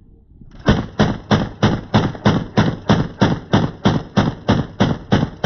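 A firearm fired in rapid, evenly paced single shots, about three a second, some fifteen shots starting about a second in and carrying on to the end.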